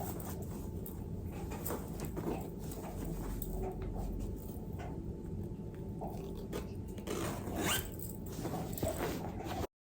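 Fabric pillowcase and pillow insert being handled: rustling with scratchy strokes, and a zip pulled a few times near the end. The sound cuts off abruptly just before the end.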